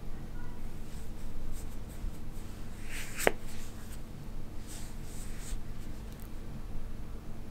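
Soft rustling of a hand stroking a long-haired cat's fur and brushing the blanket beneath, in several short strokes, with one sharp click a little over three seconds in.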